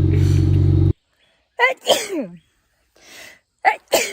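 A woman sneezing twice, each sneeze a sharp catch followed by a falling-pitch release, with a short breath between them. Before the first sneeze, a steady low hum cuts off suddenly about a second in.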